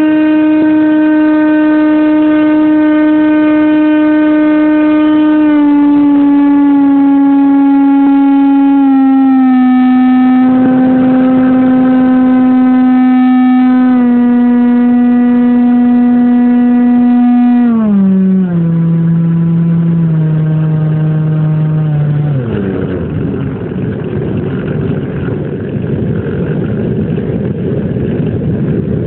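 Motor and propeller of a home-built FPV model airplane, heard from on board: a steady buzzing tone that steps down in pitch several times, drops sharply about 18 seconds in, then fades out about 22 seconds in, leaving rushing air noise.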